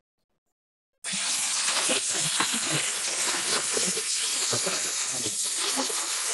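Compressed-air spray gun blasting petrol onto a carbon-fouled intake manifold to wash it: a loud, steady hiss of air and spray that starts abruptly about a second in.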